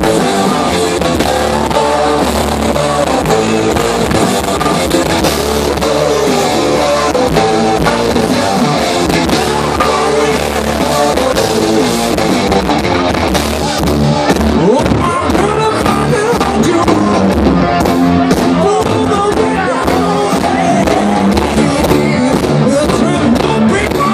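Rock band playing live, loud: electric guitar, bass guitar and drum kit with a singer, heard from within the crowd.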